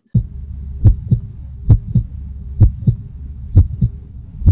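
Heartbeat sound: paired lub-dub thumps repeating about once every 0.9 seconds over a low steady rumble.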